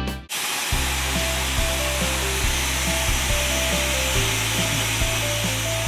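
Handheld hair dryer blowing steadily on a wet Shih Tzu's coat, with soft background music underneath. Louder guitar music cuts off just at the start.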